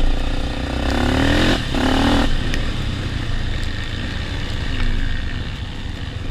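Honda XR 250 Tornado trail bike's single-cylinder four-stroke engine running, revving up twice in quick succession about a second in, then settling back to a steady lower run.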